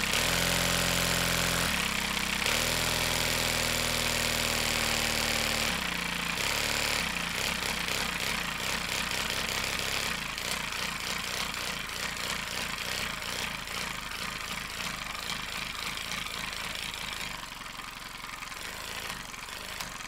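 3D-printed compressed-air engine with a VTEC-style valvetrain running on about 60 PSI of shop air. It gives a steady fast buzz for the first few seconds, then a rapid chugging of air puffs that fades out about 17 seconds in.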